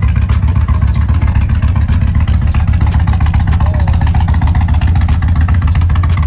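2023 Indian Chief Bobber's air-cooled V-twin idling through an aftermarket Freedom Performance Combat exhaust: a loud, steady, rapid beat of exhaust pulses with no revving.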